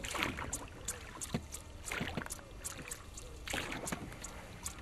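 A small boat being paddled: a few noisy swishes of water from paddle strokes, about one every one and a half seconds, with small knocks and clicks from gear on the boat.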